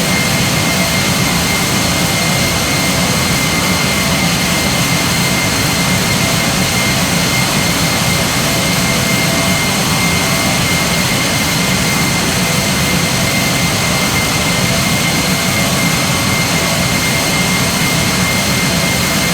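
Jet airliner engines running steadily: an even, unchanging jet noise with a steady high whine.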